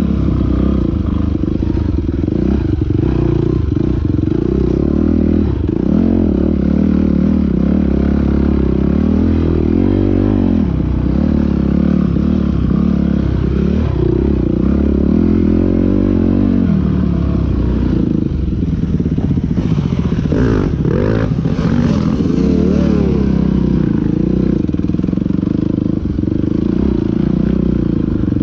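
Off-road dirt bike engine being ridden hard, its revs rising and falling as the throttle is worked over rough trail. A run of clattering knocks comes about two-thirds of the way through.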